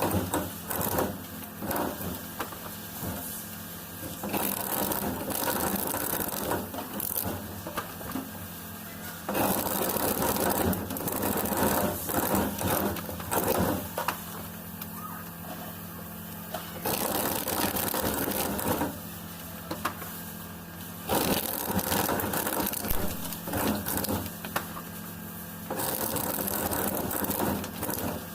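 A small machine's motor hums steadily, with repeated stretches of a few seconds of harsher, noisier working sound, about five in all.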